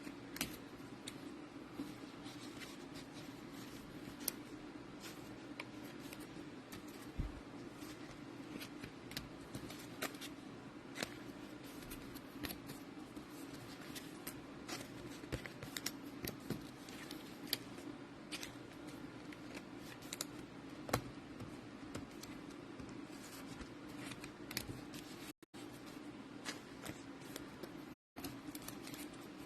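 Trading-card packs and cards handled on a table: scattered light clicks, scrapes and rustles from the wrappers and card stock, over a steady low hum.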